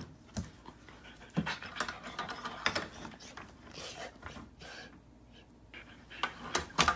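Yellow Labrador panting, with scattered light clicks and knocks on a wooden floor and a louder cluster of knocks near the end.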